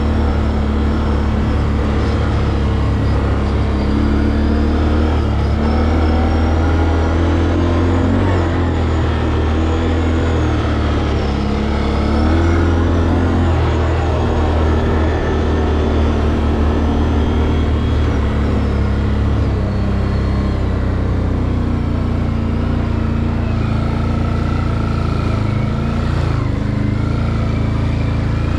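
Can-Am Outlander 800 Max XT ATV's V-twin engine running steadily while riding, its pitch stepping up and down a little with the throttle.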